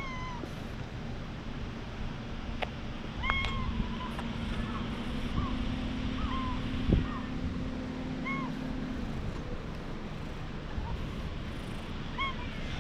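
Tabby stray cat giving a string of short meows, about ten over the stretch, while it is petted and patted on the back.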